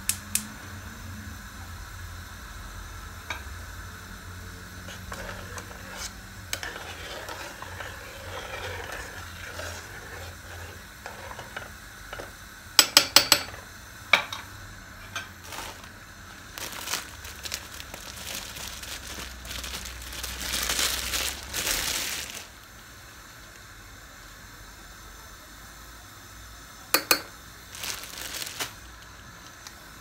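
A gas hob's burner igniter clicking rapidly as the knob is turned, with quick runs of sharp clicks again later, among light clinks of a stainless steel pot and utensils. A brief rush of noise comes about two-thirds of the way through, over a low steady hum.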